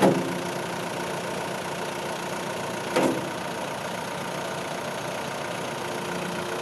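Terex 760B backhoe loader's diesel engine idling steadily. Two short knocks stand out over it, one right at the start and one about three seconds in.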